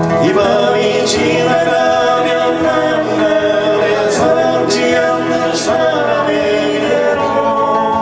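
Men singing together in harmony, accompanied by acoustic guitars.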